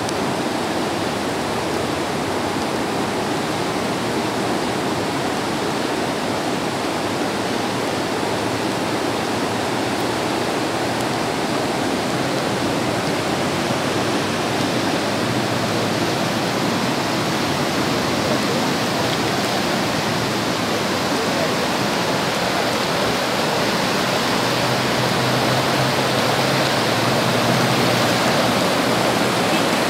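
Floodwater of an overflowing creek rushing steadily, growing a little louder in the last third.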